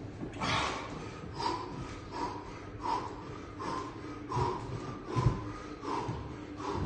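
A man breathing hard from exertion, with short forceful exhales in an even rhythm of roughly one every three-quarters of a second. A dull low thud comes about five seconds in.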